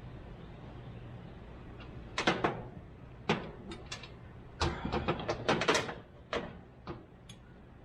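Sharp clicks and knocks of hand tools and small metal parts being worked on a truck's column shift linkage: a cluster a little after two seconds, another just after three, a busy run of rapid clicks from about four and a half to six seconds, then a few lighter ones.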